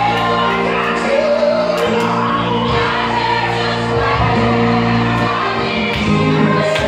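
Gospel song with choir singing over instrumental backing.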